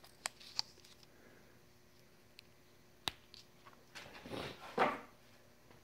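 Quiet handling sounds of hands wrapping yellow Teflon thread-seal tape onto a small brass pipe nipple: a few light clicks, then a brief rustle about four seconds in, the loudest part.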